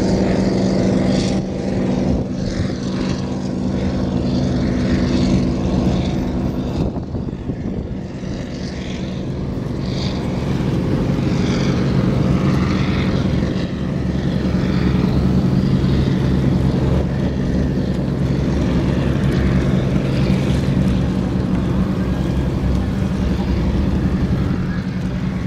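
Motor launch's engine running hard in a steady drone as the boat passes at speed, with the hiss of its bow wave and wake. It eases slightly partway through and then builds again.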